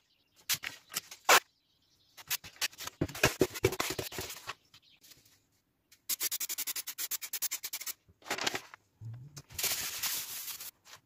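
Blue masking tape is pulled off the roll in short rips and rubbed down onto a plywood board, then a can of spray adhesive is sprayed in a quick run of short hisses.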